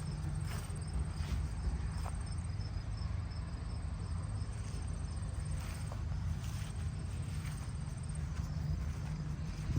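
High, rapidly pulsed insect trill in stretches of a few seconds, stopping near the end, over a steady low rumble.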